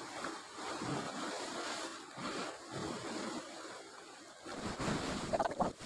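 Sea surf washing on the shore, with wind on the microphone.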